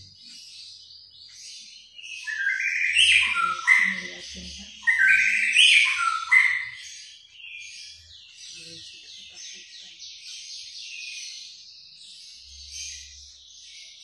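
White-rumped shama (murai batu) singing. Loud, rich whistled phrases that fall in pitch come in the middle, and quieter fast runs of repeated chattering notes come before and after them.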